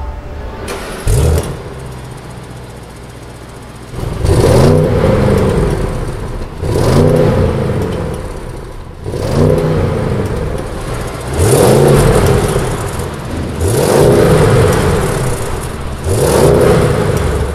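2022 Audi S8's twin-turbo V8 heard at the exhaust, revved freely from idle six times in a row, the pitch rising and falling about every two seconds. Before that there is a short blip about a second in, then idle.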